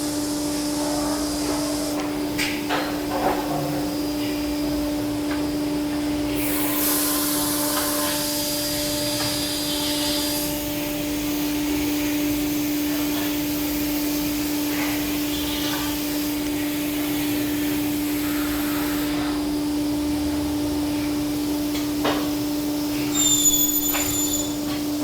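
Factory machinery running in a uPVC window workshop: a steady machine hum throughout, with stretches of high air hiss that switch on and off, scattered clanks, and a few short high beeps near the end.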